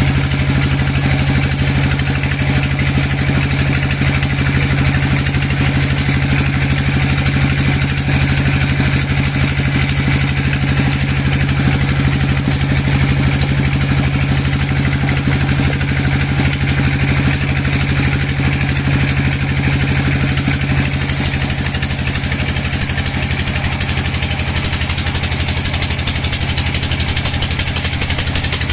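Sawmill machinery running steadily, a constant engine-like hum with a hiss on top. The sound changes slightly about three-quarters of the way through.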